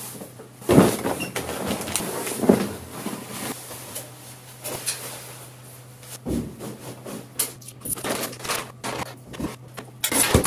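Laundry bags set down with a thump about a second in, then scattered knocks and clatters as a top-loading washing machine is loaded and its lid is lifted, over a steady low hum.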